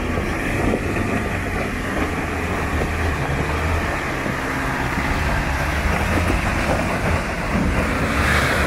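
Mitsubishi L200 (Triton) pickup engine running steadily at low speed as the truck crawls over a rocky dirt track, with stones clicking and crunching under the tyres.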